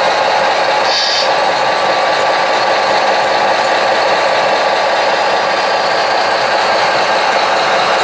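Steady, dense mechanical rattle of running RC construction models, their small motors and gearing working together, with a brief high-pitched tone about a second in.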